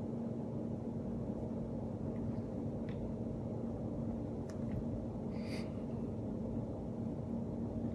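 Steady low hum of room background, with a few faint light ticks and a brief soft hiss about five and a half seconds in, as a cat paws at a plush fish toy on a hardwood floor.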